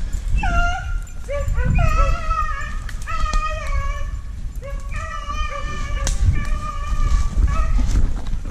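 A pack of beagles baying on a running rabbit: several dogs' drawn-out, overlapping bawls, with a steady low rumble underneath.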